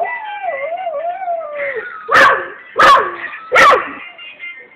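Labrador dog 'singing': one long wavering howl, then three short, loud yelps about two-thirds of a second apart, each falling in pitch.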